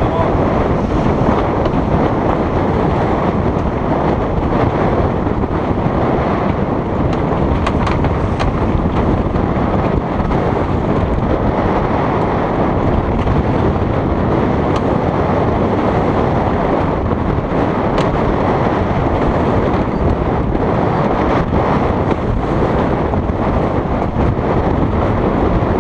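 Steady wind noise buffeting the microphone on the deck of a trimaran under sail, over the rush of water along the hulls. A few faint ticks come through, twice near the middle and once later.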